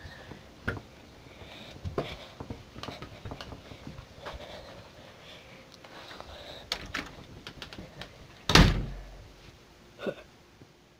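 A door with a metal lever handle being worked, giving a scatter of small clicks and knocks. A loud door thump comes near the end, followed by one softer knock.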